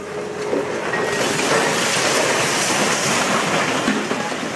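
Brick wall being knocked down by a hydraulic excavator, masonry and rubble crashing and crumbling in a long rush of noise that builds up about half a second in.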